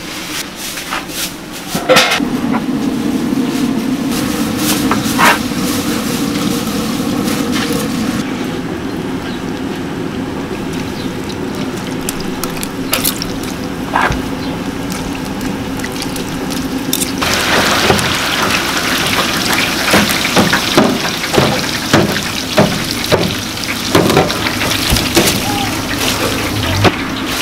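Simmering sauce bubbling over a steady low hum, with the odd clink. About two-thirds of the way in, a louder steady hiss with many small crackles takes over: hot oil deep-frying fish cake, with clinks of metal utensils.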